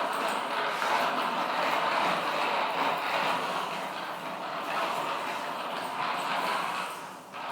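Skateboard wheels rolling steadily over the ground, a continuous gritty rumble that dips briefly near the end.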